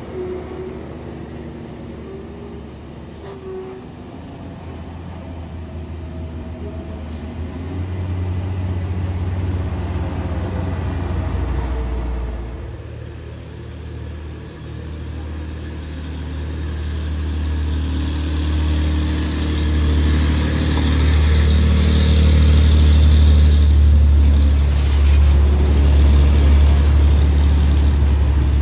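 Engines of a truck and a heavily loaded pickup running on a steep uphill road: a deep, steady drone that dips about halfway through and then swells much louder in the second half.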